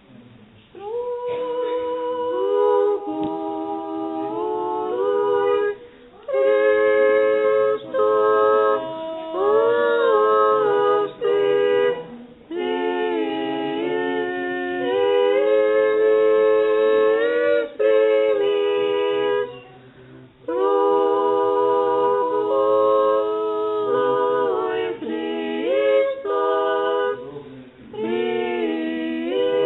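Church choir singing Orthodox liturgical chant a cappella in several parts, with held chords in phrases of a few seconds separated by short breaths.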